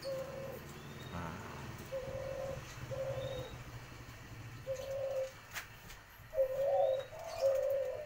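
Caged doves (puter and tekukur) cooing: a string of short low coos, a few close together near the end, with a few faint high chirps.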